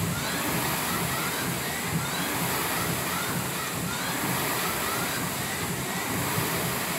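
Air rowing machine's fan flywheel spinning under hard rowing, a steady rush of air.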